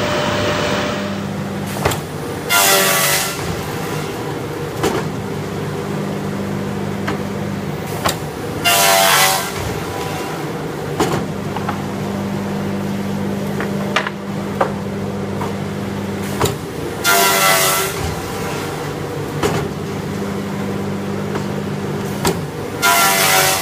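Wood pallet saw machine running with a steady motor hum, its saw cutting through pine pallet boards four times at intervals of several seconds, each cut a loud ringing whine lasting about a second.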